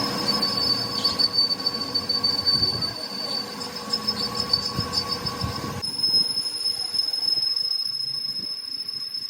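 Steady high-pitched metallic squeal from workshop machinery working metal, with an abrupt change in the background noise about six seconds in.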